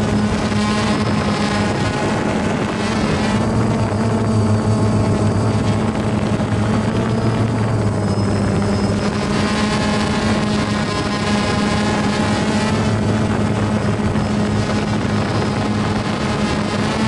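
Small multirotor drone's propellers and motors buzzing steadily close to the microphone, the pitch shifting slightly up and down as it flies.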